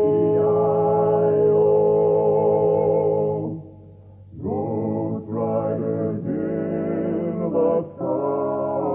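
Male barbershop quartet singing a cappella in close harmony. A long held chord breaks off about three and a half seconds in, and after a short pause the four voices come back in with shifting chords.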